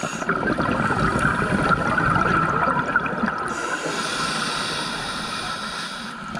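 Scuba regulator breathing heard underwater: a rush of exhaled bubbles for about three seconds, then the hiss of an inhalation through the regulator.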